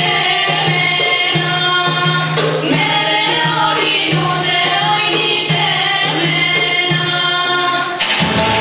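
Albanian folk song with women singing over a regular drum beat. Near the end it switches abruptly to a different, mostly instrumental passage.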